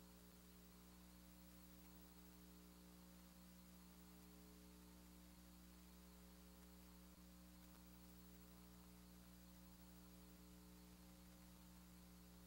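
Near silence, with a faint steady electrical mains hum.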